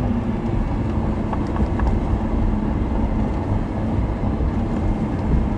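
Lamborghini Huracán's V10 engine running steadily at part throttle, a low rumble heard from inside the open-top cabin along with wind noise.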